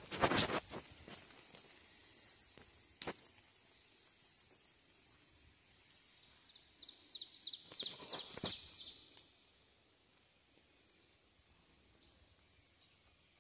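A songbird repeating a short, high chirp that slides downward, again and again with pauses. Footsteps and rustling on a leafy woodland trail are loudest near the start and again about eight seconds in, with a single sharp click about three seconds in.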